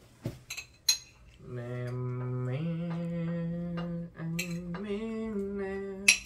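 A few sharp clinks of tableware about a second in, then a low male voice sings a slow, chant-like tune in long held notes that step up in pitch partway through.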